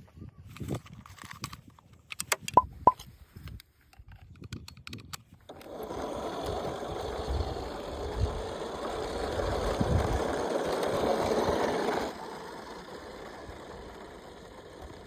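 Sharp clicks and knocks of a plastic toy being handled, then a remote-control toy bus's small electric motor and gears whirring steadily for about six seconds before dropping to a fainter whir.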